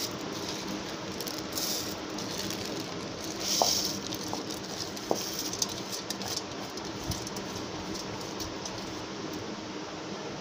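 Soaked basmati rice dropped by hand and tipped from a steel bowl into boiling liquid in a pressure cooker: a soft pattering splash over a steady bubbling hiss from the boil, with a couple of brief louder rushes and a few light clinks of the bowl.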